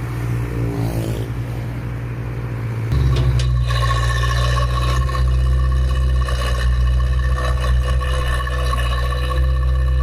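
Crawler excavator's diesel engine running with its hydraulics working. The pitch falls in the first second or two, then about three seconds in it steps up louder and steadier, with a high whine over the engine.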